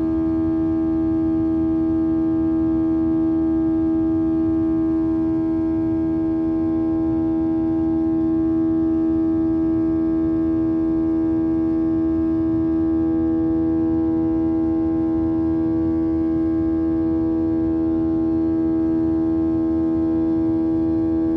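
Inside the cabin of a Boeing 737-800, its CFM56-7B engines at steady power: one strong droning tone with several fainter higher tones over a low rumble, unchanging throughout.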